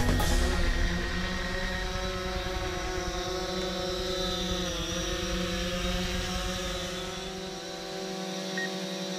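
DJI Phantom 4 quadcopter drone hovering close by: a steady propeller whine made of several pitches, which dips briefly in pitch about halfway through and then steadies again.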